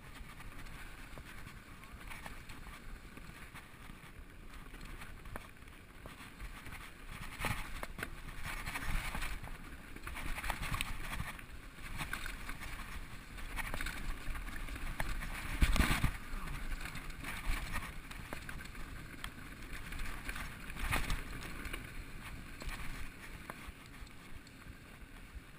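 Specialized SX Trail full-suspension mountain bike descending a dry, rocky dirt singletrack: tyres rolling over dirt and stones, with the bike rattling and knocking over bumps, busier from about a quarter of the way in and a heavy jolt about 16 seconds in.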